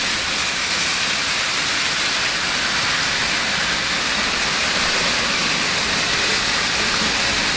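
Several model trains, including Märklin HO trains, running on metal three-rail track: a steady, even hiss-like whirr of wheels and motors.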